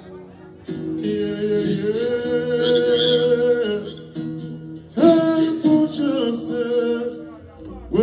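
A male singer sings live into a microphone over backing music, in two long phrases with a short break between them.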